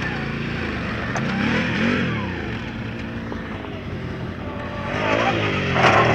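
Quad bike (ATV) engine revving, its pitch rising and falling a couple of times; louder near the end as a quad comes close.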